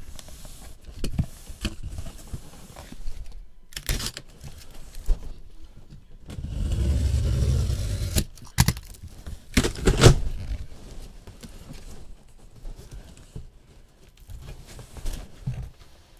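Large cardboard shipping box being handled and shifted on a tabletop: bumps and sharp knocks, with a longer rumbling scrape around the middle.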